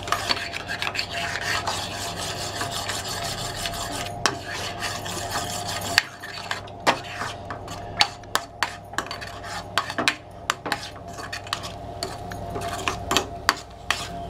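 Spatula scraping and tapping against a frying pan as eggs are stirred and scrambled, over a steady sizzle that drops away about six seconds in; after that the scrapes and taps come as many short, sharp strokes.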